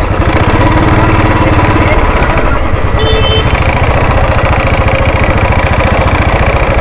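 Motorcycle engine running at low speed, close up, with a steady rapid pulse. A brief high beep sounds about three seconds in.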